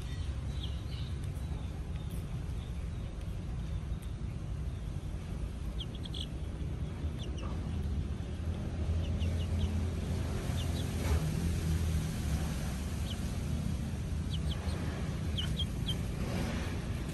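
A steady low rumble throughout, with scattered short, high peeps from a young chicken, some of them falling in pitch.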